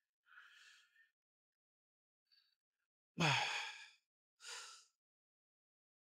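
A man breathing hard under load during a set of hack squats: a short breath, then about three seconds in a loud voiced exhale that falls in pitch like a sigh, followed by a shorter breath.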